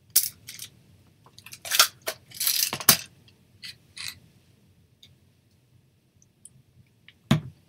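Small craft pieces being handled on a tabletop: paper crinkling with light clicks and taps over the first three seconds, then a single sharp knock near the end.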